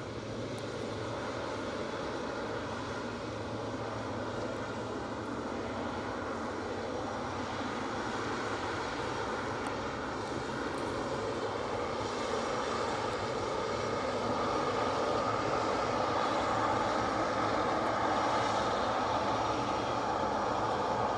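Boeing 777's twin jet engines rumbling steadily as the airliner rolls out along the runway after landing, the noise slowly growing louder as it passes close by.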